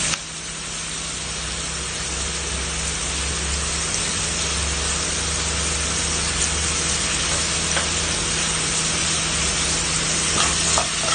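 Sliced onion, green chilies and garlic frying in hot oil in a pan: a steady sizzling hiss. Near the end a few light knocks as a spoon is put to the pan.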